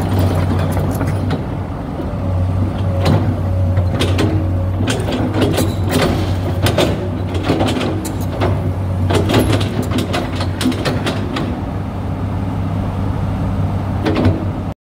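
Komatsu PC200-8 excavator's six-cylinder diesel engine running steadily while the boom and bucket are worked, with repeated sharp knocks and clanks over the engine note. The sound cuts off abruptly near the end.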